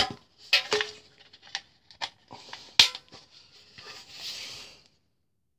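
Scattered clinks and knocks of a steel WWII German gas mask canister being handled and turned over, with a soft rustle about four seconds in; the sound then drops out completely near the end.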